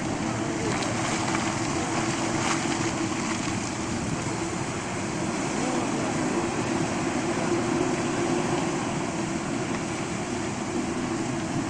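Heavy machine engine running steadily, a continuous drone, over the even rush of flowing water.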